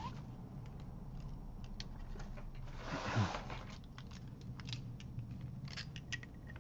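Clear plastic TWSBI Eco fountain pens clicking and tapping against each other as they are taken out of a fabric pen case, with a short rustle about three seconds in.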